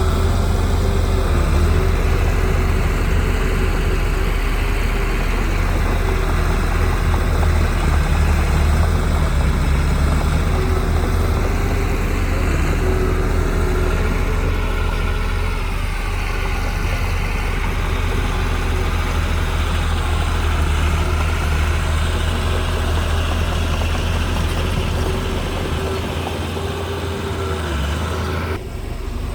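Heavy construction machinery's diesel engine running steadily under load, with a deep low-pitched hum and a slight rise and fall in pitch; the sound changes abruptly just before the end.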